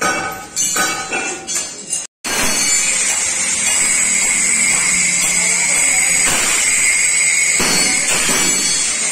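A hammer knocking on the steel bars of a scroll window grille, each blow ringing, about every half second. About two seconds in the knocks cut off abruptly, and a steady hiss with a thin high whine takes over.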